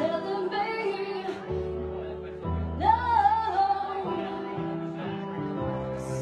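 A woman singing a slow ballad into a microphone over held instrumental chords, her voice swelling on a long wavering note about halfway through.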